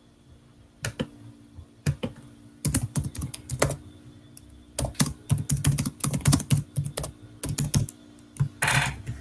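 Typing on a computer keyboard: irregular runs of quick keystroke clicks, followed by a short noisy burst near the end.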